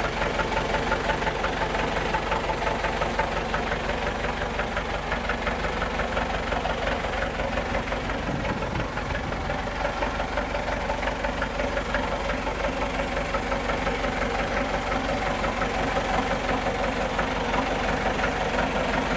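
IFA W50 truck's diesel engine idling steadily with an even, rapid clatter.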